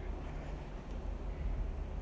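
Steady low hum with a faint hiss: the background noise of the recording, with no other sound.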